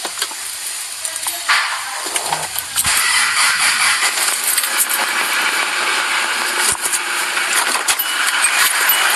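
Common-rail diesel engine of a 2003 Hyundai Starex CRDi van starting after a no-start, with a loud hissing rush from its clogged exhaust as debris and water are blown out. The rush sets in about a second and a half in and holds steady from about three seconds.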